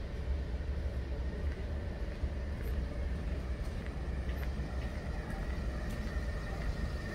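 Steady low rumble of city street traffic, with a faint, even hum and a few scattered light clicks.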